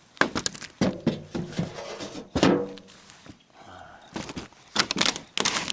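Irregular knocks and thunks of someone moving about and handling things on a camper's scraped roof, with a brief pitched creak or squeak near the middle.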